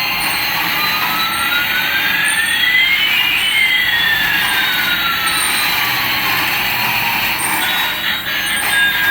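Electronic sound effect: two whining tones, one rising and one falling, that cross near the middle over a steady hiss, with short high beeps about once a second.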